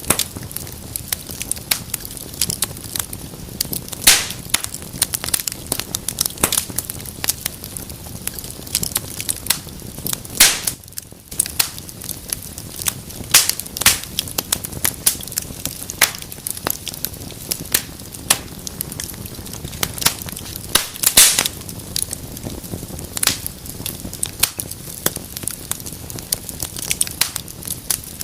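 Wood fire burning in a fireplace: dense, irregular crackling with frequent sharp pops over a steady low rush of flames, and a few louder pops scattered through.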